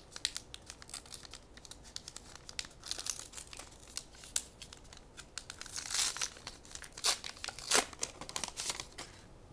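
Foil wrapper of a 1990-91 Upper Deck hockey card pack being torn open and crinkled by hand: irregular sharp crackles, loudest in the second half.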